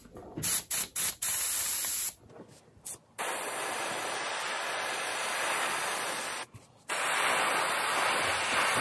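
Airbrush spraying paint: a few short spurts of air, then long steady hisses with a brief break about six and a half seconds in.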